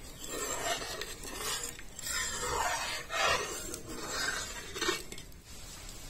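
Metal ladle scraping and sloshing around an iron kadhai while stirring a thin masala gravy, in repeated strokes about once or twice a second that stop about five seconds in.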